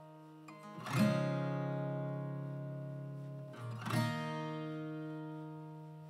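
Background music: acoustic guitar strumming, with one chord struck about a second in and another about three seconds later, each left to ring out and fade.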